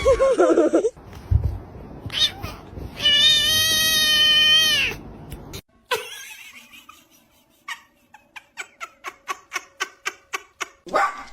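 A cat giving a long, drawn-out yowling meow after a shorter wavering call, then a run of quick sharp ticks in the second half.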